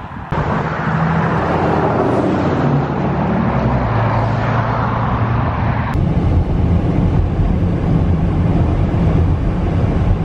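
Car engine and road noise heard from inside the cabin while driving, a steady drone that begins abruptly just after the start.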